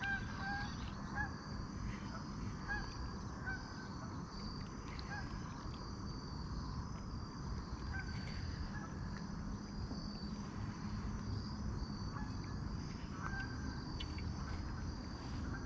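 Steady high insect chorus over a low outdoor rumble, with short bird calls repeated every half second or so in the first few seconds, then only now and then.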